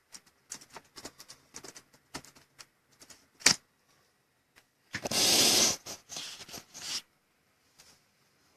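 Irregular small clicks and taps, with one sharp loud click about three and a half seconds in. A short loud burst of rustling noise comes about five seconds in, followed by a few more clicks.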